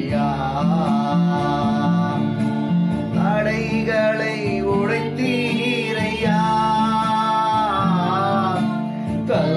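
Tamil Christian worship song: a voice singing long, wavering phrases over guitar accompaniment.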